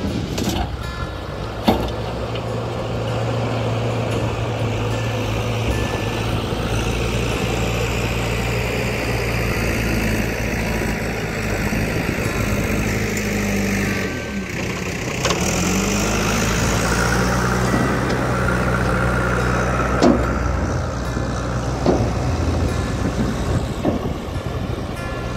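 Tipper truck's diesel engine running steadily while the raised body dumps its load of earth. The engine note dips and comes back up about halfway through, and a few short knocks stand out.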